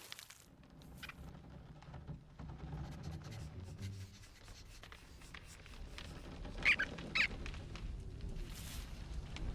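Two short, high squeaks close together about seven seconds in, over a faint low background with a few soft clicks.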